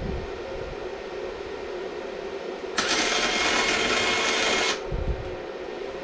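Flux-core MIG welding arc from a Stahlwerk MIG 135 M IGBT inverter welder, starting suddenly about three seconds in and burning for about two seconds as a short test bead on scrap steel, then stopping abruptly. A steady hum runs underneath, and a short low thump follows just after the arc stops.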